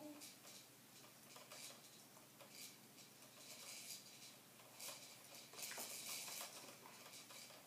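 Near silence: room tone with faint scattered clicks and light rustling, a little busier past the middle.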